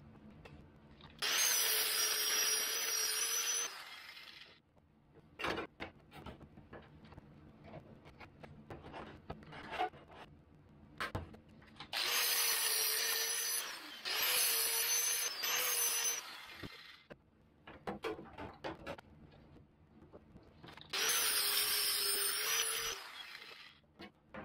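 A cordless power drill running in four short bursts of about two seconds each, with a steady whine, working on the car's sheet-metal body. Between the bursts come light clicks and handling of metal parts.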